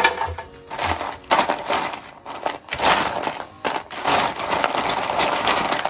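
Dry, brittle orange peel pieces crackling and rustling as handfuls are dropped into a blender jar, in several irregular bursts. Background music with a soft steady beat plays underneath.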